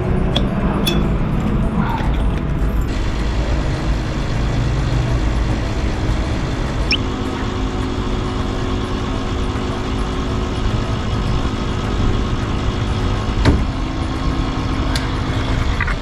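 Gas station fuel dispenser running steadily while filling the van's tank, a low rumble with a steady hum. There is a single sharp click about two and a half seconds before the end.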